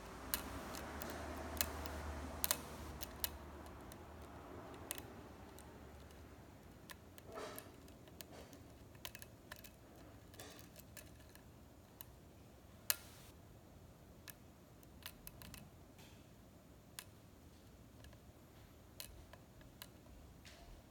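Lock pick and tension wrench working the pins of a Schlage KIK-style pin-tumbler cylinder: small metallic clicks and ticks at irregular intervals, with one sharper click about thirteen seconds in.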